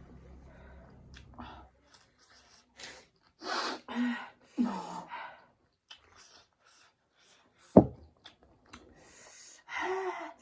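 Noodle eating at close range: several short breathy gasps and slurping sounds, some with a brief voiced edge, in two clusters. A single sharp knock, the loudest sound, comes near the middle.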